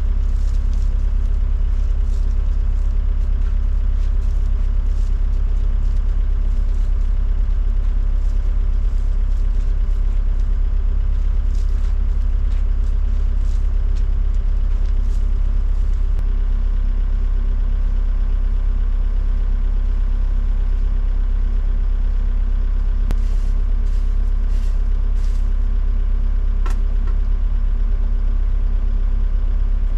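Volvo excavator's diesel engine idling steadily, heard from inside the operator's cab as a constant low hum.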